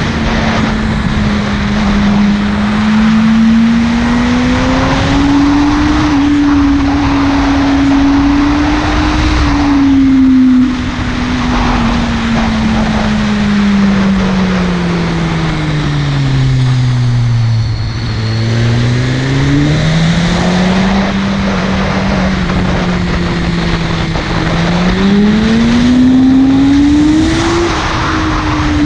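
Buell 1125CR's 1125 cc V-twin engine running under a rider's throttle, its pitch rising and falling with the revs. It sinks to a low drone about two-thirds of the way through, then climbs again near the end.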